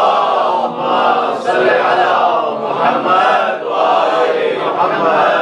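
A congregation of many voices reciting salawat together in unison, a group chant answering the invocation of Muhammad's name. It is loud and steady throughout.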